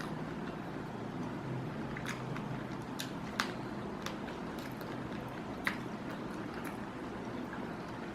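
A person chewing and biting into shell-on spicy prawns, with scattered sharp, wet clicks and crunches. The two strongest come about three and a half and five and a half seconds in, over a steady low background hum.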